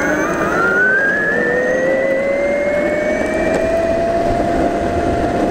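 Yuneec E-GO 2 electric skateboard accelerating: its motor whine rises steadily in pitch and levels off near the end, over the rumble of hard wheels rolling on asphalt.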